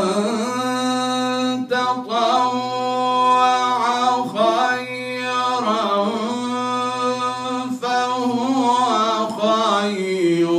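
A man reciting the Quran in the melodic tajweed style, solo and unaccompanied: long held notes with ornamented turns, broken by short pauses every couple of seconds.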